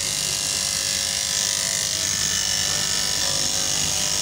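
Electric straight-knife fabric cutting machine running steadily, its upright reciprocating blade cutting down through a thick stack of fabric layers.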